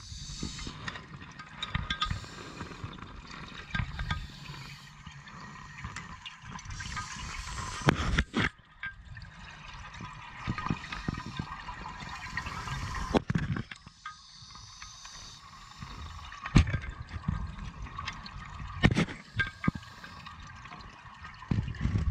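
Scuba diver's regulator breathing underwater, heard through the camera housing: a bubbling rush of exhaled air every several seconds over a low rumble. Sharp knocks and clunks of gear against the housing come here and there.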